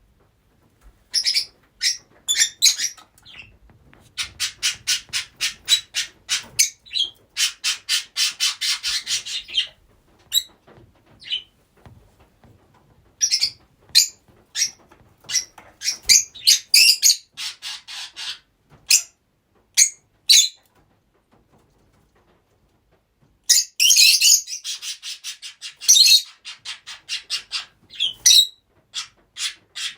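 Several rosy-faced lovebirds calling: sharp, shrill chirps and squawks in bursts, including fast runs of rapidly repeated chirps, broken by a few short pauses.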